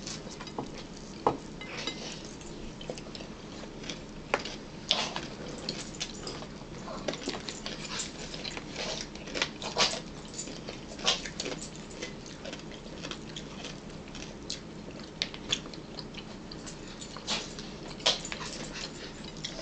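Eating sounds at a table: forks clicking and scraping on plates and a plastic bowl in short, irregular taps, with chewing mouth sounds.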